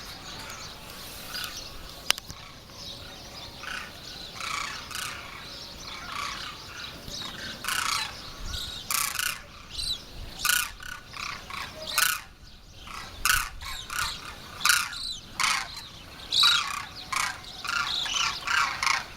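A flock of demoiselle cranes calling in flight overhead, many short calls that grow more frequent from about halfway through.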